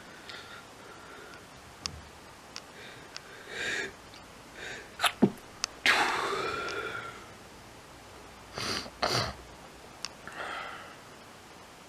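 A person sneezing several times in a row, with sharp breaths between the sneezes; the loudest sneezes come a little past the middle.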